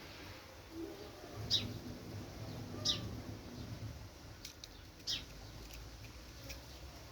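Domestic cat purring softly, a low pulsing hum, while it eats. A few short, sharp clicks come through it.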